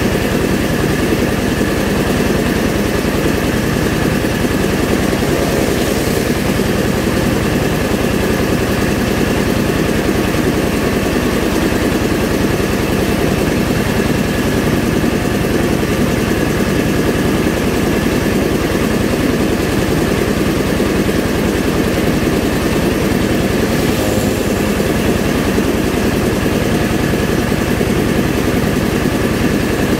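Engine-driven rice milling machine (selep padi) running steadily while milling paddy: a loud, constant machine noise that holds the same throughout.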